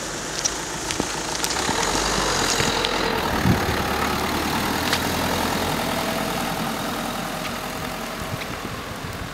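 A car driving slowly past on a paved road, its engine running at low speed, growing louder over the first few seconds and then slowly fading as it moves away.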